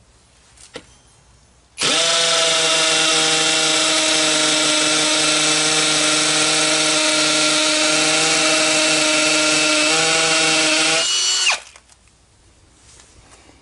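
Hammer drill starting suddenly and running at a steady speed for about nine seconds while boring a hole for a wall anchor, then winding down in pitch as the trigger is released.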